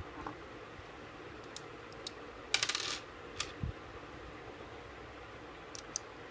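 Light clicks and taps of small watch parts and tools handled on a hard work surface, with a short metallic rattle about two and a half seconds in, as of a small metal part dropped and settling.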